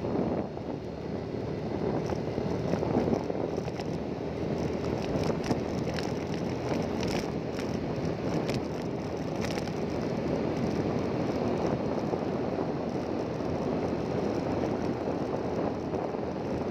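Engine running steadily while travelling, with wind noise on the microphone and occasional small clicks.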